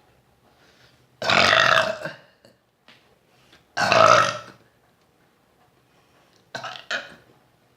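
A person burping loudly from drinking Coke: two long burps of about a second each, then a shorter double burp near the end.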